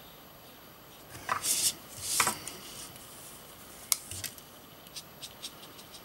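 Two short rustling scrapes as a sheet of stamped card is slid and turned on a wooden desk, then a single sharp click and a few light ticks.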